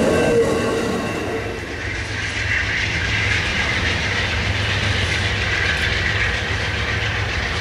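Amtrak Superliner passenger cars rolling by on steel wheels with a clickety-clack, a brief ringing squeal at the start, then a steady rumble and hiss as the train moves off.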